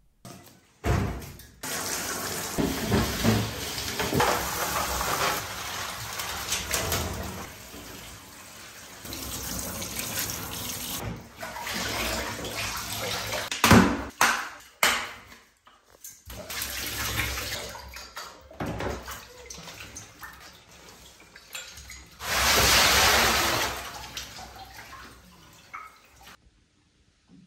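Running water splashing over PC parts as they are washed, in several short cut-together takes. A louder, hissing rush of water comes about three-quarters of the way through.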